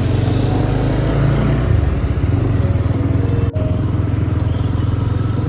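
Motorbike engines running in street traffic, a steady low drone with a brief dropout about three and a half seconds in.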